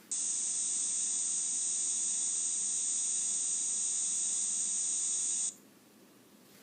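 Recorded cicada song played from a children's electronic call-identifier toy: one steady, high-pitched buzz that starts at once and cuts off suddenly after about five and a half seconds.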